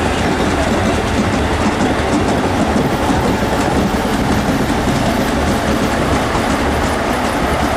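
Long passenger train running past, a steady loud rush of wheels on rails.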